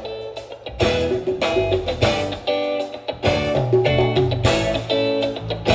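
Live band playing an instrumental passage with no singing: guitar lines over bass and drums, with a steady beat of about two hits a second.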